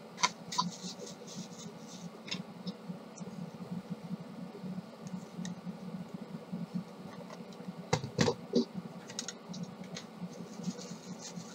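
Small plastic clicks and scrapes from handling the housing of a Kyocera M5526 drum unit, with a few louder clicks about eight seconds in.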